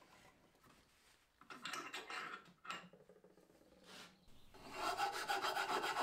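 Flat metal file rasping back and forth in a drilled slot in a softwood table leg, smoothing the slot. A few short scrapes come first, then a steady, loud rasping starts about three-quarters of the way in.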